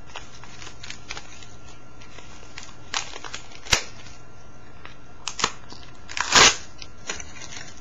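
Clear plastic wrapping crinkling and crackling as it is peeled off a trading card by hand, in scattered small crackles. A sharp click comes a little before four seconds in, and a louder half-second crinkle about six seconds in.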